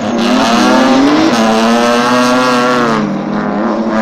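Drift car's engine revving hard while drifting: the pitch climbs over about the first second, then holds high and steady under sustained throttle, dips briefly near three seconds and comes back up.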